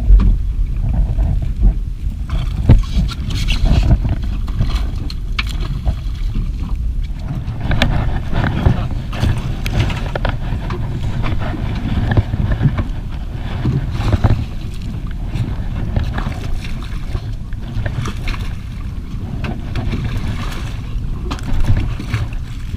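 Wind buffeting the microphone and water slapping against the hull of a small fishing boat rocking on choppy sea, a dense low rumble broken by irregular knocks.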